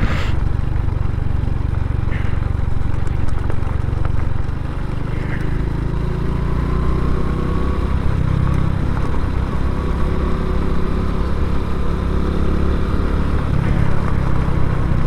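Honda Pop 110i's small single-cylinder four-stroke engine running steadily as the motorcycle rides uphill, heard from the rider's camera.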